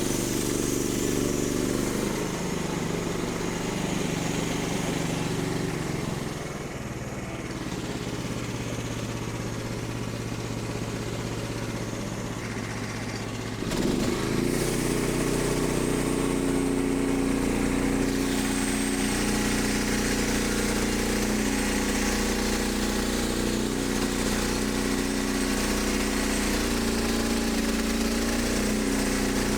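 Portable bandsaw sawmill's small petrol engine running steadily. It speeds up and gets louder about halfway through, then holds that higher speed.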